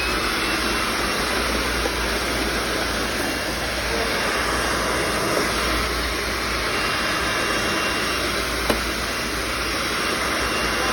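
Panasonic MC-V7325 upright bag vacuum cleaner running steadily while vacuuming: a constant motor whir with a thin high whine over it. One sharp click about three quarters of the way through.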